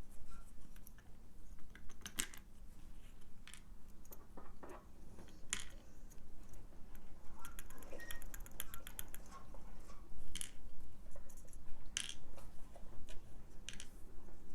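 Irregular small metallic clicks and taps from a Sargent XC lock cylinder being gutted by hand, its plug worked out of the housing with a hollow-ended follower. The sharpest clicks come about 2, 5½, 10½ and 12 seconds in.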